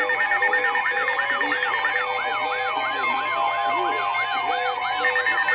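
Several emergency alert tones sounding at once: a rapid yelping up-and-down sweep about three or four times a second over steady alert tones, with a lower beep pulsing on and off about twice a second.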